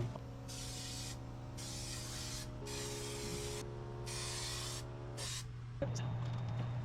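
Aerosol can of spray contact adhesive for foam hissing in five short sprays, the last one very brief.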